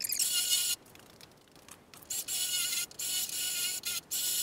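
Cordless drill with a 3/8-inch bit drilling out spot welds in a car's sheet-steel rocker panel, run in short high-pitched bursts. After the first burst there is a pause of about a second and a half, then several bursts close together.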